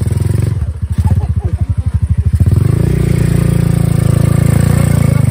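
Small ATV engine running with a regular pulsing exhaust beat; about halfway through the throttle is opened and the engine gets louder and revs up as the quad pulls away.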